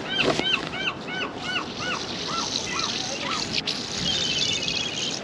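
A bird calls a series of arched notes, about three a second, slowing and falling in pitch before stopping about three seconds in. At the start a crab pot splashes into the water, and a brief rapid high chatter follows about four seconds in.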